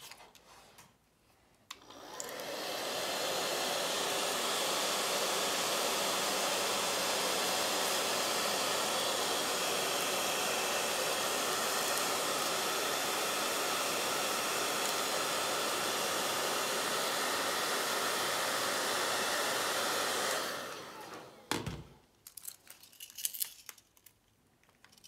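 Handheld hair dryer switched on about two seconds in and blowing steadily at full speed, then switched off near the end, its rushing dying away, followed by a single knock.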